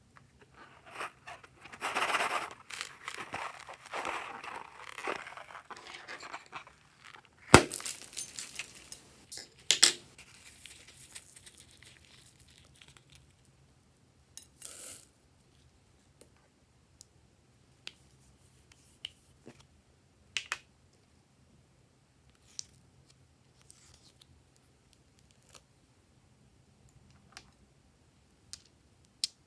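Glossy slime being stretched, folded and pressed by hand, giving a dense run of small crackles and pops for the first several seconds. A sharp pop comes near the middle and another burst a couple of seconds later. After that there are only scattered small clicks and pops.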